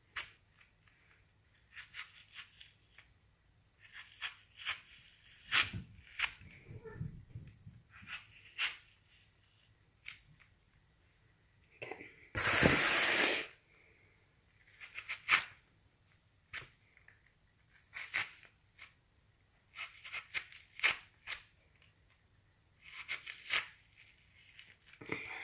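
A knife cutting and scraping out the core of an apple: irregular short scrapes and clicks, with one louder, noisy scrape-like burst of a second or so about halfway through.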